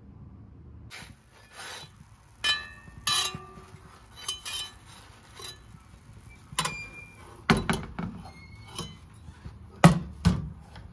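Dishes and utensils clinking and being set down: a string of separate sharp clinks, some ringing briefly, with a few heavier knocks near the end.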